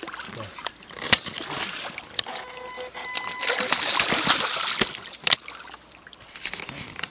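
Water splashing and sloshing, loudest in the middle, with a couple of sharp knocks.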